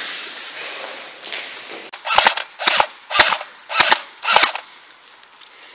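Airsoft gun firing five single shots in quick succession, about half a second apart.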